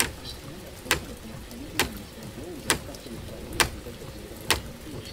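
Slow, evenly spaced ticking like a clock sound effect, about one sharp tick per second, over a low wavering hum.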